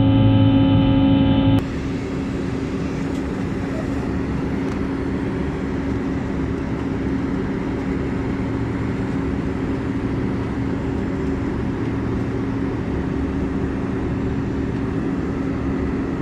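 Steady airliner cabin noise in flight: engine drone and rushing air with a low steady hum. About a second and a half in, a droning with several steady tones cuts off abruptly and gives way to an even rush.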